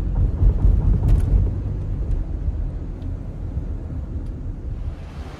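Road and engine noise inside a moving car's cabin: a steady low rumble that slowly gets quieter toward the end.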